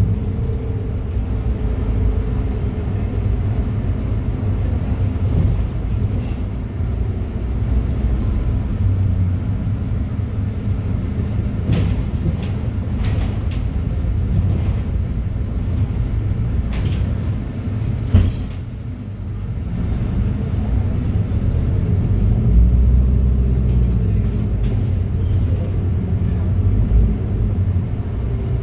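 City bus running, heard from inside the passenger cabin: a steady low engine and road rumble. Short rattles and clicks come through in the middle, and a sharp knock at about 18 seconds is followed by a brief dip in the engine noise.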